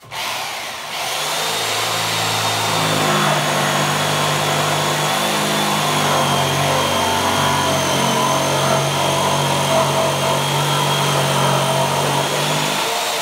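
Corded jigsaw cutting across an old reclaimed wooden board on an aggressive cutting setting, starting suddenly and running steadily under load with a high motor whine. The cut ends near the end and the motor winds down.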